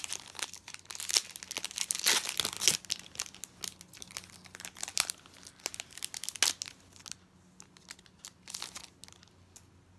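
Foil-wrapped Pokémon booster pack being torn open and crinkled by hand: dense crackling that thins out after about seven seconds.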